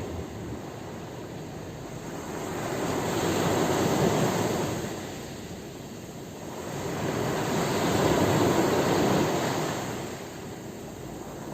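Sea waves breaking and washing in, the surf swelling twice, about four seconds in and again around eight seconds, and falling back in between.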